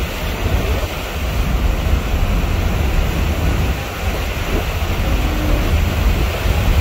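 Passenger ferry underway: a steady low rumble with the rush of its churning propeller wake and wind on the microphone.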